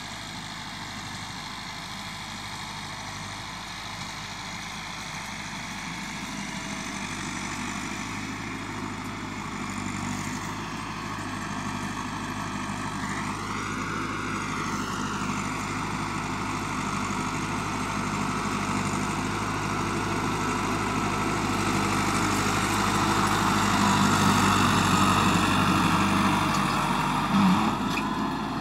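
Farm tractor's diesel engine running steadily while pulling a tillage implement over ploughed soil, growing louder as it draws near. A brief rising-then-falling whine sounds about halfway through.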